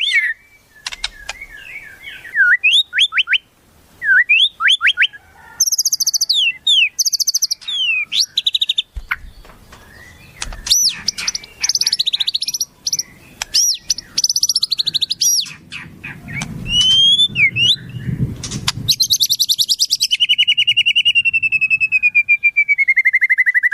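Wild songbird calls: a series of varied sharp whistled notes, upward and downward sweeps, and chirps. About three-quarters of the way through comes a long, rapid trill that slides steadily down in pitch.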